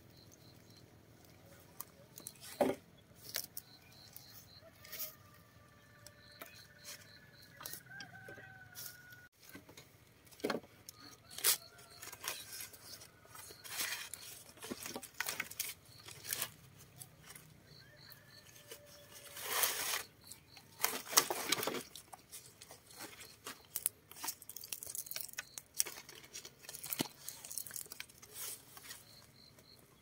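Chickens clucking, with scattered sharp knocks and taps throughout and a couple of longer rustling bursts about twenty seconds in.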